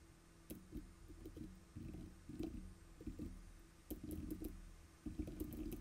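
Computer keyboard typing: a faint, uneven run of soft keystrokes.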